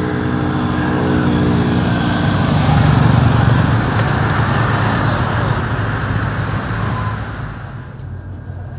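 Road traffic: a motor vehicle passes close by, growing louder to a peak about three seconds in and then fading. Near the end a lower, steady engine hum remains.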